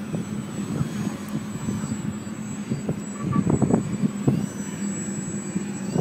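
Electric motor and propeller of a small foam Yak-54 RC aerobatic plane buzzing steadily as it hovers nose-up low over the grass, with louder throttle surges about halfway through.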